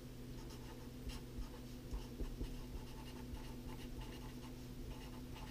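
Felt-tip marker writing on paper: a run of short, faint scratching strokes as words are lettered by hand, over a steady low hum.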